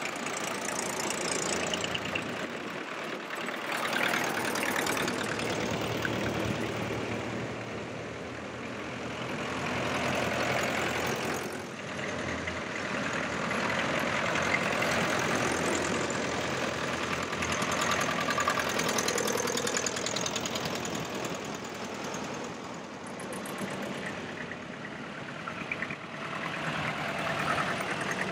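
Several vintage farm tractors driving past one after another, their engines running with a knocking chug. The sound swells and fades as each tractor passes close by.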